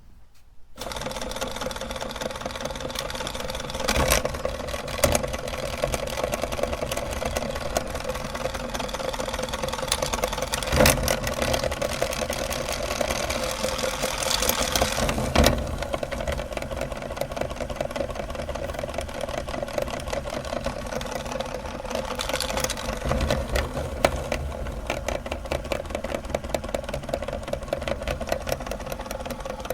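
Electric meat grinder switching on about a second in and running steadily, its motor and auger giving a fast, even whir, with sharp cracks now and then as it grinds candy.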